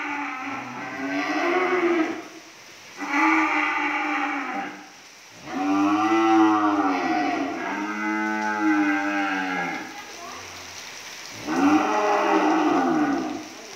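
Cattle mooing: about five long moos in a row, each about two seconds, rising and then falling in pitch.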